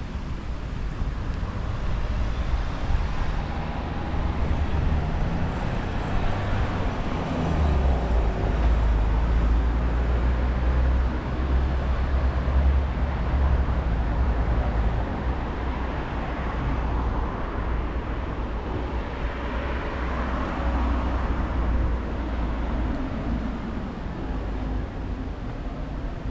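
Road traffic on a residential street: a motor vehicle's low engine rumble and tyre noise. The sound builds to its loudest about three-quarters of the way through, then fades as the vehicle passes.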